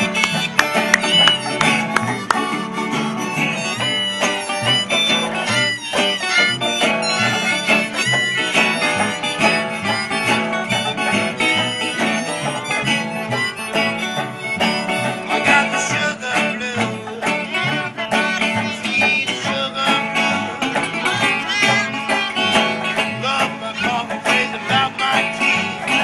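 Background music: an acoustic tune with plucked strings in a country or bluegrass style, playing steadily.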